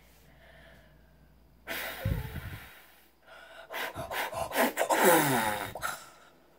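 A boy's voice: a loud burst of breath close to the microphone, then a long, loud gasping cry that falls in pitch and stops about six seconds in.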